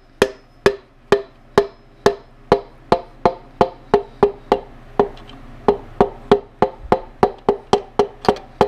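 Piston being tapped down the cylinder bore of a 5.3 L LS V8 block through a ring compressor: a steady series of sharp knocks with a short ring, about two a second, coming faster near the end.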